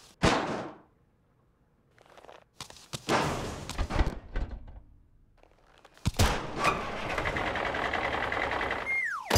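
Cartoon sound effects for an animated double-decker bus running over a croissant: a sudden thud at the start, a noisy stretch with a bump, then a sharp knock about six seconds in followed by a steady rumbling noise. It ends in a quick falling whistle.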